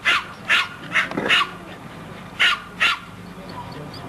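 Plummer terrier barking: six sharp, high yaps, four in quick succession, then two more after a pause of about a second.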